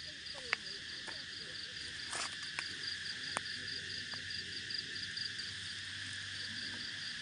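A steady chorus of cicadas, a continuous high buzz with an upper layer that pulses about six times a second. A few short clicks and knocks sound over it in the first half.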